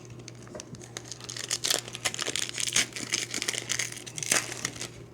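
Plastic foil wrapper of a retail trading-card pack crinkling as it is handled, with irregular crackles and a sharper crackle near the end.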